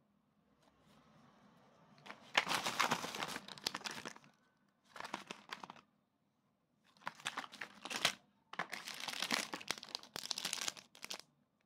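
Packaging crinkling as it is handled, in four bursts of rustling and crackling.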